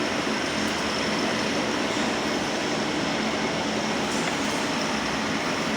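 Annealing furnace running: a steady, even rushing noise with a faint low hum.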